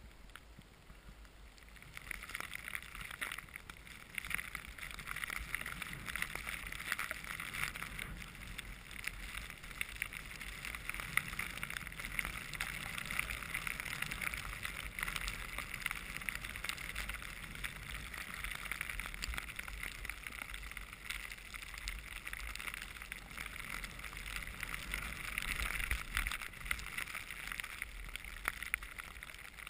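Skis sliding through powder snow, a steady hiss that starts about two seconds in as the descent begins. Wind rumbles low on the microphone underneath.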